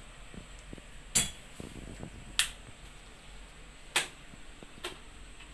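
Four sharp, short clicks at uneven intervals, the first the loudest and the last the faintest, over faint room hiss.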